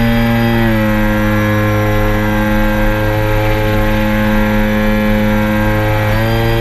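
3DR Solo quadcopter's motors and propellers humming loudly and steadily. The pitch shifts about half a second in and again near the end, as the motors change speed while the drone manoeuvres.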